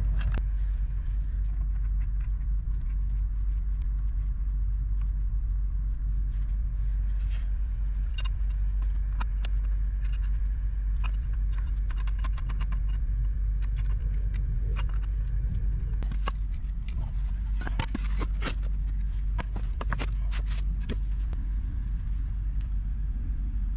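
Black steel gas pipe fittings being handled and threaded together by hand: scattered metal clicks and clinks, bunched most thickly about two-thirds of the way through, over a steady low rumble.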